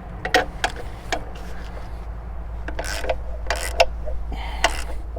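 Ratchet wrench working on the bolts of a chainsaw carrier's mounting bracket: a few sharp metal clicks, then three short rasping runs of ratcheting in the second half.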